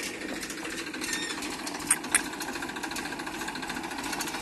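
Tractor diesel engine running with a steady, rapid knocking beat. Two sharp clicks about two seconds in.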